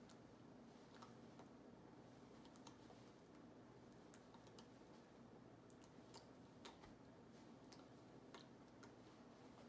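Near silence: faint room tone with scattered faint clicks.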